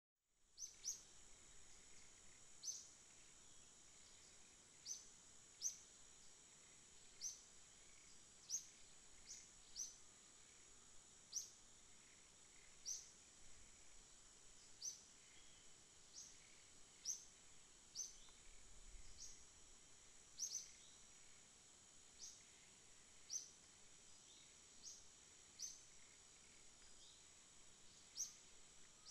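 Tree-canopy ambience: a steady high-pitched insect drone, with a bird repeating a short, sharp downward-sweeping chirp about once every second or two.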